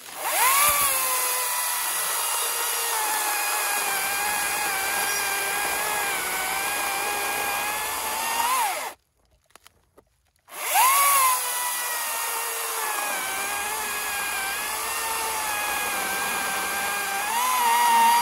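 Makita XGT 40V 18-inch battery chainsaw making two cuts through dead wood. Each cut starts with the motor whining up to speed, then holds a steady, slightly lower pitch while the chain cuts. The pitch rises briefly at the end of each cut, and there is a pause of about a second and a half between them.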